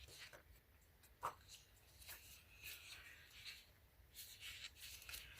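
Faint rustling and light clicks of paper as the pages of a sticker book are handled and turned, with one sharper tap about a second in.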